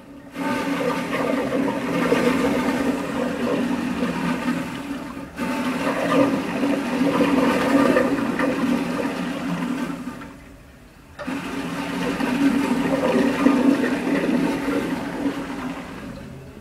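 Metal toilet flushing, a loud rush of water swirling through the bowl. The rush breaks off briefly about five seconds in, then falls away for about a second near ten seconds before starting again sharply.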